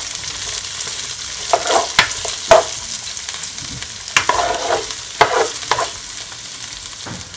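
Chopped bell peppers, onion and spring onion sizzling lightly in oil in a nonstick frying pan, stirred with a spatula in short scraping strokes. The strokes come in two bunches, starting about one and a half and about four seconds in, with one more near the end.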